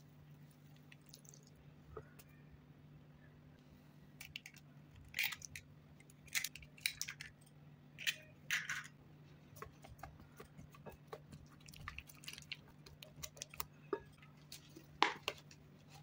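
Quiet food-prep handling sounds: scattered short squishes, crunches and taps from squeezing wet riced vegetable in cheesecloth and cracking eggs into a glass bowl, busiest through the middle. A faint steady hum runs underneath.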